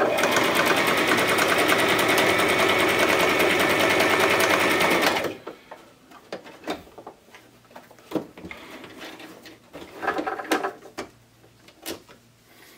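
Brother XM3700 electric sewing machine stitching a zigzag stitch through denim at speed, a fast rapid chatter of the needle mechanism, including a reverse run to lock the stitch. It stops abruptly about five seconds in, followed by scattered small clicks and knocks.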